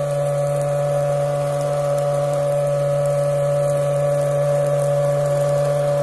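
Small DC motor of a homemade bottle-and-cardboard vacuum cleaner running steadily, a constant whine over a lower hum, as it sucks up sawdust.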